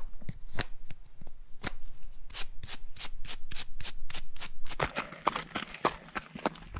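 Hoof pick and its stiff brush scraping and brushing dirt out of the sole of a bare, unshod horse hoof in quick strokes, about four or five a second at their fastest. A few scattered footfalls follow near the end.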